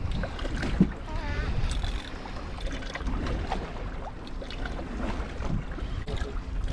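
Wind on the microphone and sea noise around a small fishing boat: a steady low rumble with a few short knocks.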